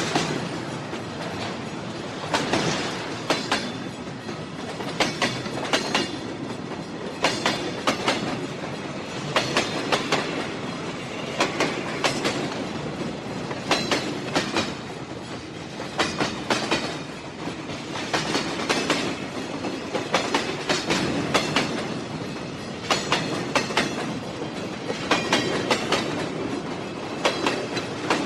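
Train running along the track: a steady rumble with the clickety-clack of the wheels passing over rail joints, coming in clusters of clicks about every two seconds.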